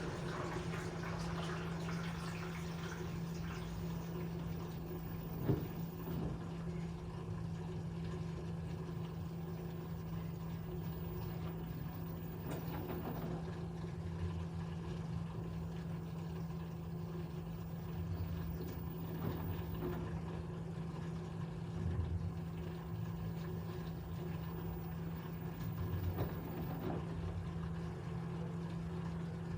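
LG 13 kg front-loading washer-dryer draining before its spin: a steady hum from the drain pump, with water rushing out in the first few seconds and a few scattered soft thumps as the drum turns the load.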